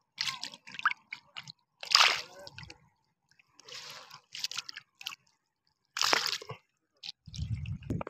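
Hand splashing and sloshing in shallow water around a net stake, in several short, irregular wet bursts.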